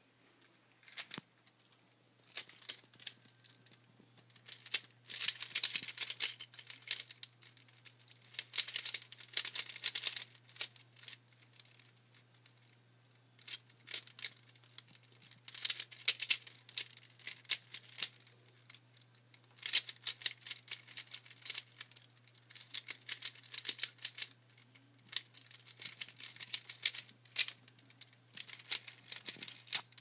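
Plastic 3x3 Rubik's cube being turned fast by hand: its layers give rapid rattling clicks in bursts of a few seconds, with short pauses between them.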